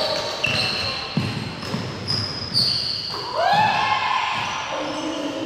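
A basketball bouncing on a hardwood gym floor, with sneakers squeaking sharply now and then and players calling out.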